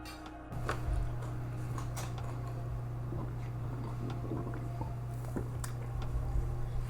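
Close-miked eating sounds: soft wet chewing and mouth clicks from someone eating stir-fried pork spare ribs, over a steady low hum.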